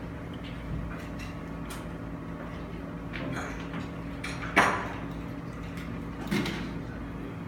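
Lull between songs with a steady low electrical hum and a few scattered knocks and clicks of equipment being handled on stage. The loudest knock comes about four and a half seconds in, and a smaller one a little before the end.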